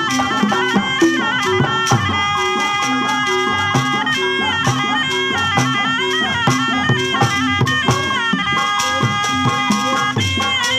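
Sundanese terompet, a double-reed shawm, playing a held and quickly ornamented melody over a steady rhythm of kendang hand drums.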